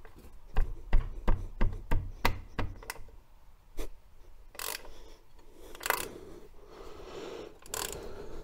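Socket ratchet clicking about three times a second as it works the nuts holding the rear drum-brake adjuster, the clicks growing fainter. Three short hisses follow later on.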